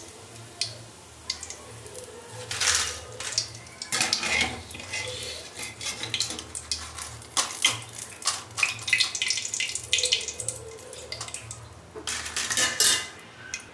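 Wire-mesh skimmer scraping and clinking irregularly against a metal kadhai as fried potato chips are scooped out of hot oil, with oil draining and dripping back into the pan.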